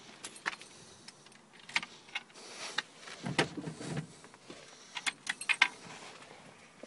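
Keys jangling with scattered sharp clicks and small knocks of handling inside a small car's cabin, and a brief low rustle about three seconds in.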